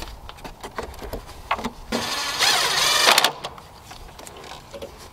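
Plastic engine cover knocking and scraping as it is slid onto its mounting hooks over the engine, with light clicks at first and one louder scrape lasting about a second a couple of seconds in.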